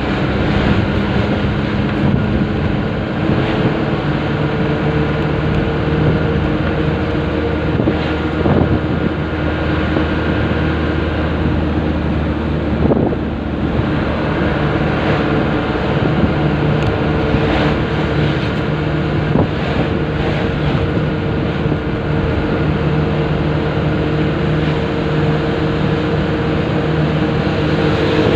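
Heavily loaded truck's engine running steadily while driving, heard from inside the cab, with road and wind noise.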